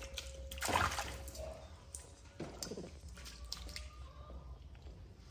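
A macaque biting and chewing a ripe mango: wet, squelching bites in short bursts, the loudest about a second in and another a little past the middle.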